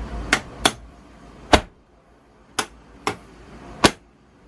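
Boat refrigerator and freezer doors with stainless-steel fronts being shut and pressed closed against newly replaced door seals: six sharp clicks and knocks, the loudest about a second and a half in.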